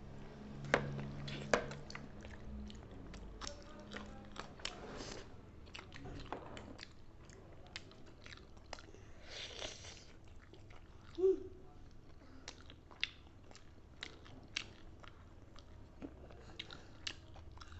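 Close-up eating sounds: chewing and biting food, with many small crunches and mouth clicks scattered irregularly throughout.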